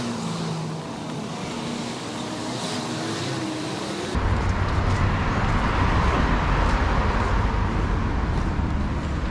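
Road traffic going by, cars passing. About four seconds in, a heavy low rumble sets in suddenly and stays.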